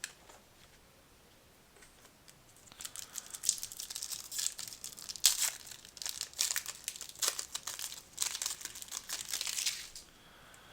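Foil wrapper of a trading card pack crinkling as it is torn open and handled. It starts about two and a half seconds in and goes on in rapid crackles almost to the end.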